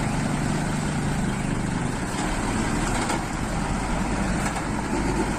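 Large dump truck's diesel engine running steadily, a low rumble with an even hiss over it.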